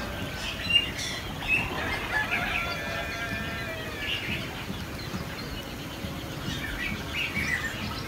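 Birds chirping and calling: scattered short chirps, a few held whistled notes about two seconds in, and a run of quick chirps near the end.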